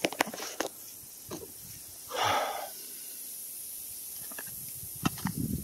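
A few light clicks and taps from handling a box of rifle cartridges, with a short breathy exhale about two seconds in.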